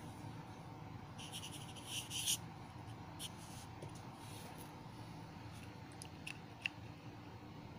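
Pen tip scratching across paper in a few short strokes, writing a signature, followed by a few sharp light clicks near the end, over a steady faint background hiss.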